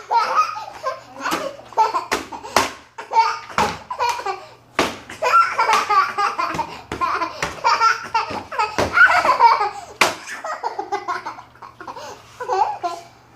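A young child laughing and squealing on and off, with several sharp knocks or taps mixed in.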